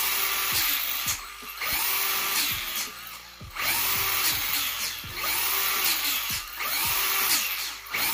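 Hosim X08's brushless motor and geared drivetrain whining as the throttle is worked in about five short bursts. Each one rises in pitch and then drops away quickly rather than coasting down, because the ESC's drag brake stops the wheels when the trigger is eased off.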